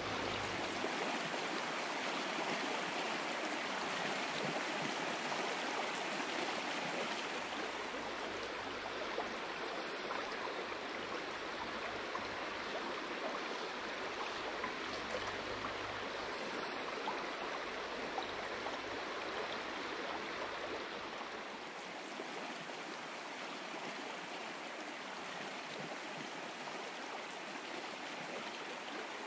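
Shallow rocky stream running over stones: a steady rush of flowing water, slightly softer over the last quarter.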